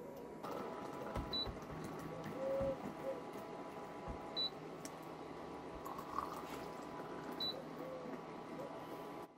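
Water poured in a thin stream from a stainless steel kettle into glass tea glasses, a steady trickling splash. A short high chirp comes three times, about three seconds apart.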